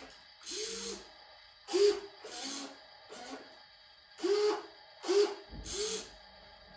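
Remote-controlled toy excavator's electric motors whirring in about seven short bursts as its arm and bucket are moved. Each burst rises and falls in pitch.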